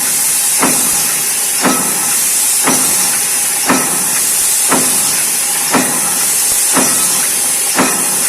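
CNC punch press punching sheet metal plate, a short sharp stroke about once a second at an even pace, over a steady high hiss.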